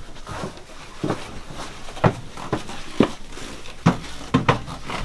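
Handling noise: a box of gloves and shop rags being moved and set down, with soft rustling and about half a dozen sharp knocks and clicks over a few seconds.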